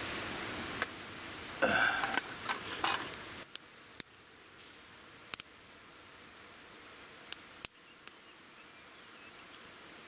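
Metal camp cooking gear clinking and scraping as it is handled, then a few scattered sharp clicks as thin sticks are fed into a small folding firebox stove.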